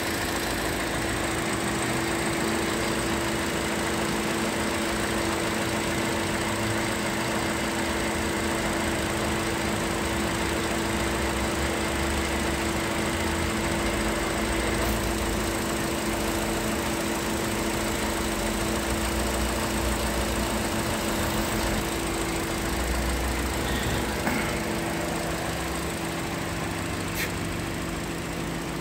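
Toyota RAV4 engine idling steadily, with a constant low hum and drone.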